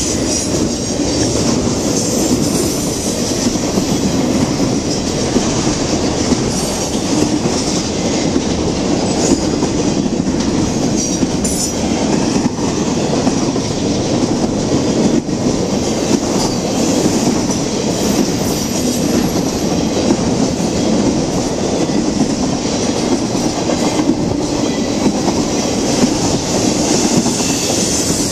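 Intermodal freight train of truck trailers on flatcars rolling past close by: a loud, steady rumble and clatter of steel wheels on the rails. Brief high wheel squeals come and go.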